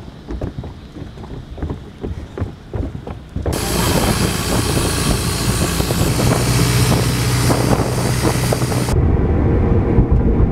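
Gusty wind rumbling on the microphone; then, about three and a half seconds in, a motorboat under way at speed: a steady engine drone under loud rushing water and wind. Shortly before the end it cuts to the low road rumble inside a moving car.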